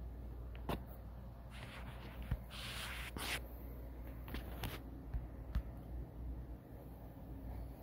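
Soft rustling and scraping of a terry towel and close handling noise, with a few sharp clicks, over a steady low hum.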